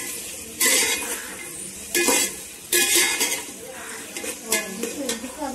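Metal slotted spatula scraping and clanking against a metal pot while stirring sliced onions frying in oil, which sizzle underneath. Three loud scraping strokes in the first three seconds, then lighter clinks.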